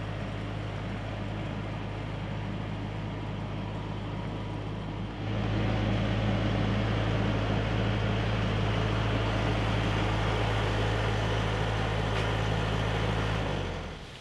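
Compact tractor engine running steadily as the tractor drives along, a continuous low hum. It gets louder about five seconds in and fades out near the end.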